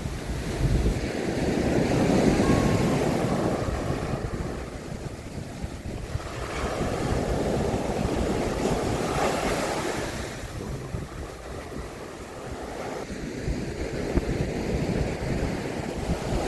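Sea waves breaking and washing up a sandy beach, the surf swelling twice and fading in between, with wind buffeting the microphone.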